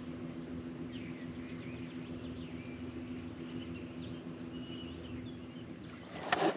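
Birds calling repeatedly with short chirps in the evening ambience over the lake, over a steady low hum. A brief louder noise comes near the end.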